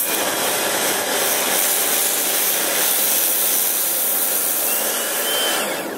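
Electric Kärcher pressure washer running, its lance spraying water onto the deck in a steady, loud hiss.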